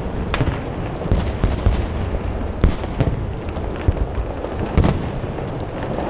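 A small evergreen tree burning fiercely: a steady rush of flame shot through with frequent sharp crackles and pops. The loudest pops come about halfway through and near the end.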